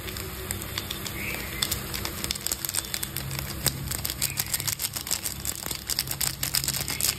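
Foil masala sachet crinkling as it is shaken and tapped empty over a kadhai of boiling water, over a crackle of bubbling water; the sharp crinkles come thicker in the second half.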